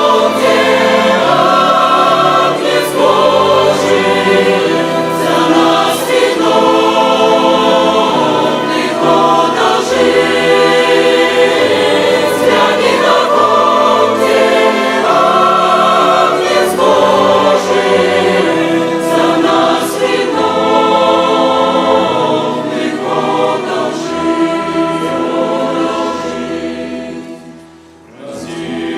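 Chamber choir singing a slow hymn with a violin orchestra accompanying. Near the end the music dies down briefly at a phrase break, then comes back in.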